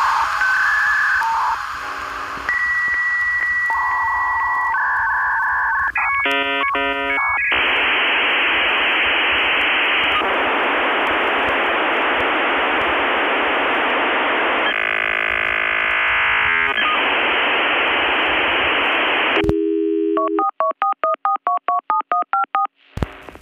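Telephone-line electronic sounds on the soundtrack: steady beeps and tones, then a long stretch of even hiss, then a quick run of alternating two-tone dialing beeps near the end, all with a narrow, telephone-like sound.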